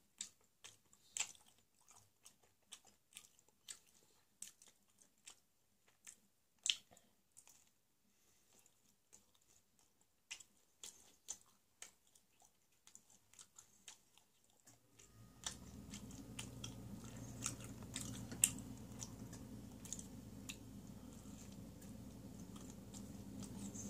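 Close-miked chewing and biting of ham-and-pineapple pizza: short, sparse wet mouth clicks over near silence. About fifteen seconds in, a steady low hum starts underneath.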